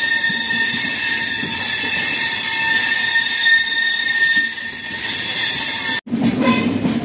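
Passenger train's wheels squealing on the rails, a steady high-pitched squeal as the train moves. About six seconds in it cuts off abruptly to a lower, rougher rumble of the train running.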